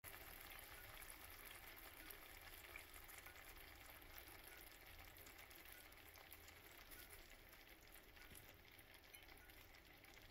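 Faint sizzling and crackling of chicken karahi gravy bubbling in a stainless-steel frying pan.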